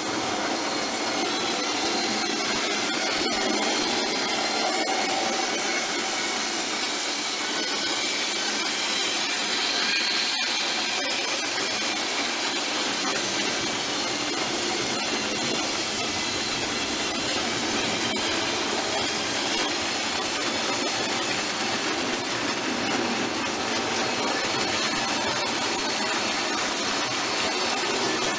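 Märklin HO model train running on the track: the steady whir of the locomotive's electric motor and the rattle of its wheels over the rails, unbroken throughout.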